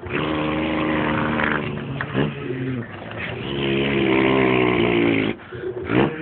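A man imitating a truck engine with his mouth: a steady pitched drone that slowly rises and falls like an engine under load. It breaks off about two seconds in and again near the end, with short upward swoops like gear changes.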